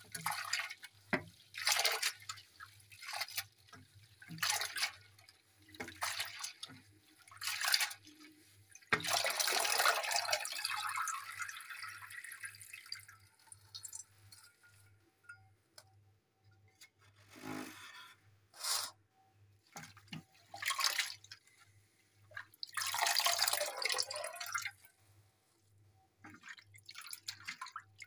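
Hands swishing chopped bottle gourd leaves in a basin of water and lifting out dripping handfuls: a string of separate splashes and drips, with longer spells of water pouring back into the basin about nine seconds in and again around twenty-three seconds.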